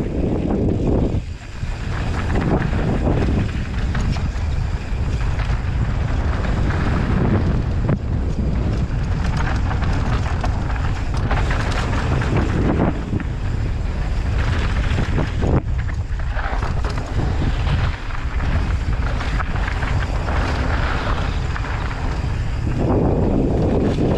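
Wind rushing over a helmet-mounted camera's microphone, mixed with a mountain bike's tyres rolling fast over a dry dirt trail, with frequent short knocks and rattles over bumps.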